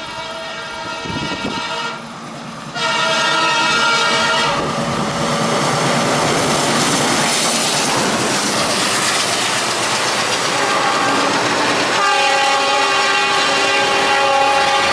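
WDM3D diesel locomotive's air horn blowing long blasts, with a short break about two seconds in, as the express train rips past at speed. From about four seconds in, the loud rush of the passing train takes over, and the horn sounds again near the end.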